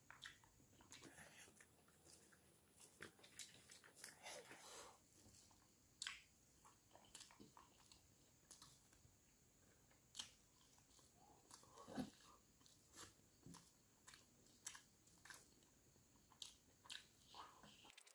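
Faint close-up eating sounds: chewing and wet mouth clicks from mouthfuls of rice eaten by hand, with scattered soft clicks of fingers mixing rice on a banana leaf.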